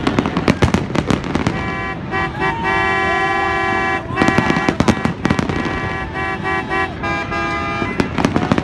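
Fireworks going off in rapid bangs and crackles, with a horn blaring through them: one long blast of about two seconds, then several shorter ones.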